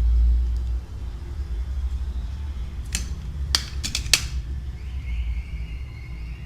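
Low rumble in the background, louder for the first second, with four sharp clicks a little past the middle: small hard tools or plastic parts knocking while a phone is being taken apart.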